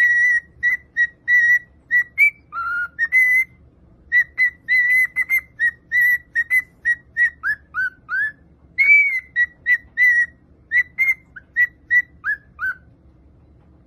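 High whistling in a quick run of short notes, most on the same pitch, some sliding down and one arching up and down, stopping about a second before the end.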